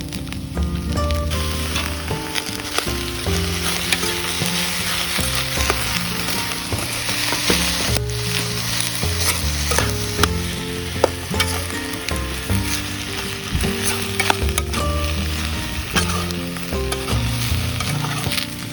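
Food sizzling and frying in a pan over a campfire while it is stirred, with a steady hiss broken by frequent sharp clicks of the utensil against the pan.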